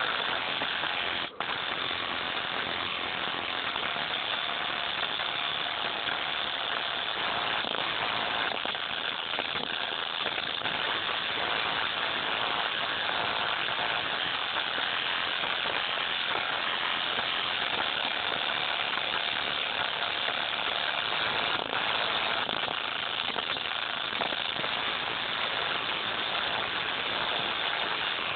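Bare headphone driver playing music at extreme volume, overdriven into a harsh, steady, distorted rattle as it is pushed to destruction. The sound cuts out for an instant about a second in.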